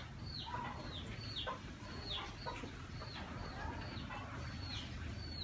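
Chickens calling: a run of short, high peeps that fall in pitch, about two a second, over a low steady hum.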